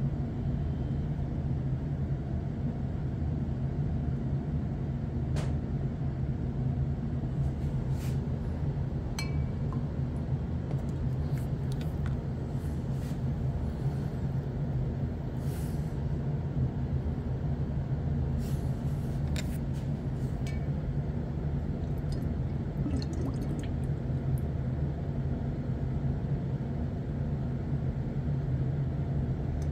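A steady low hum, with a dozen or so faint, scattered clicks, drips and clinks of glass from a glass beaker of water and a pipette.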